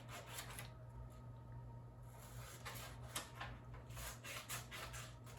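Scissors snipping through paper: a series of short crisp cuts, coming faster in the second half.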